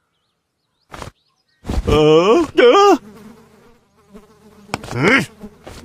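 Cartoon character's wordless vocal sounds: two short murmurs bending in pitch about two seconds in and a rising cry near the end, with a faint steady buzz between them.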